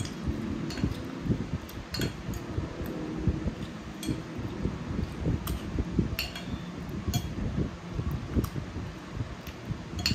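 Metal spoon and fork clinking and scraping against a ceramic plate while eating fried eggs and rice: a scattering of sharp clinks about once a second, over a low background rumble.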